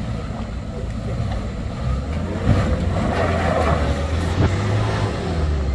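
A truck engine running, louder from about two seconds in.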